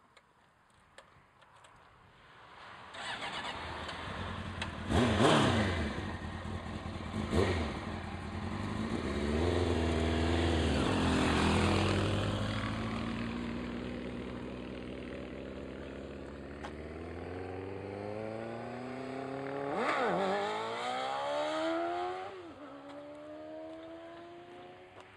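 Suzuki GSX motorcycle engine running, which the uploader calls a bad sound. After a quiet start its note rises and falls sharply several times. It then climbs slowly, with a couple of sudden drops in pitch.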